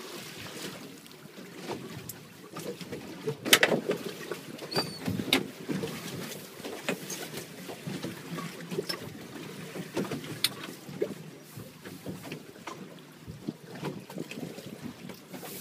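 Sea water lapping and slapping against the hull of a small boat, with wind on the microphone and scattered sharp knocks and clicks, the loudest about three and a half seconds in.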